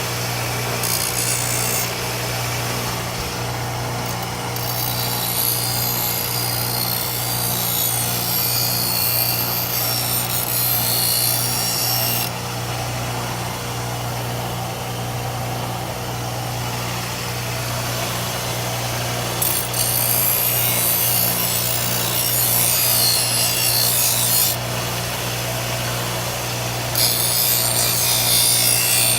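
Bench grinder motor running with a steady hum while a steel sickle blade is pressed against the spinning wheel in four separate grinding passes, each a harsh, high-pitched rasp: the longest about seven seconds, one starting about a second in and one near the end.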